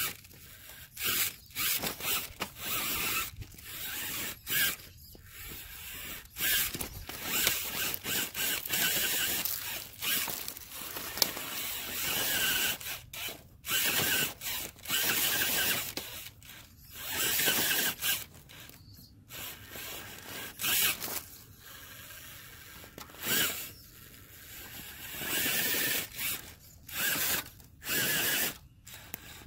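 Electric motor and geared drivetrain of an RC crawler truck whining in many short stop-start bursts as it is throttled in spurts to crawl over logs and branches.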